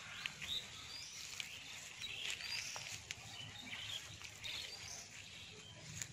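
Birds chirping over and over in short, curving calls, with the brushing and crackle of rice plants and grass as someone wades through them.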